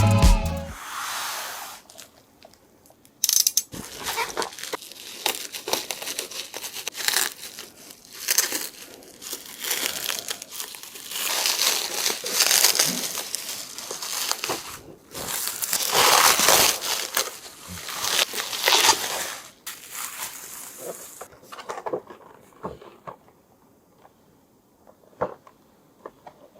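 Toy packaging being unwrapped and handled, crinkling and rustling in irregular bursts, then a few light clicks and taps near the end.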